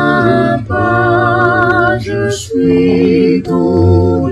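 A small group of voices singing a hymn a cappella, with no instruments, holding long notes of about a second each with brief breaks between them.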